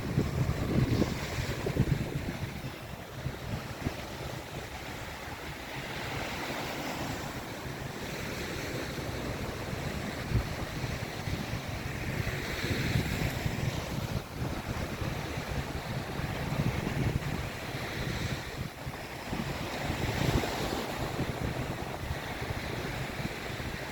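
Sea waves breaking and washing onto the beach, the surf swelling every four to six seconds, with wind rumbling on the microphone.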